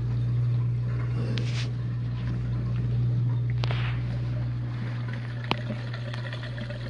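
Whirlpool dishwasher's drain pump running with a steady low hum as it pumps out the wash water. A single sharp click comes about five and a half seconds in.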